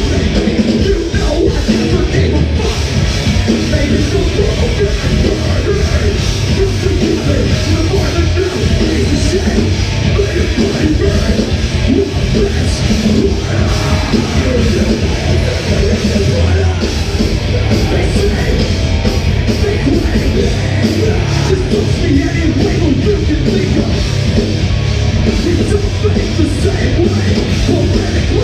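A rock band playing live, loud and without a break, in a heavy, distorted style with pounding drums.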